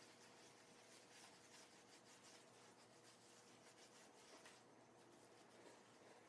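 Near silence, with faint rubbing and scrubbing of hands working shampoo lather into a golden retriever's wet coat.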